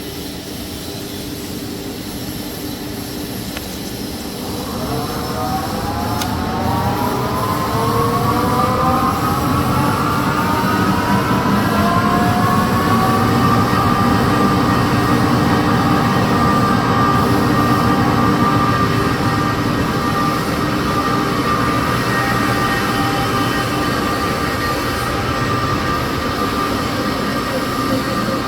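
Toilet-tissue converting machine line running: a steady mechanical drone, with a motor whine that starts about four seconds in, rises in pitch as the machine speeds up over about eight seconds, then holds steady at running speed.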